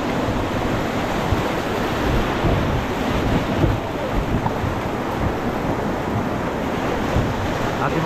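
Whitewater rapids rushing and churning around an inflatable raft as it runs the rapid, a steady loud rush of water with gusts of wind buffeting the microphone.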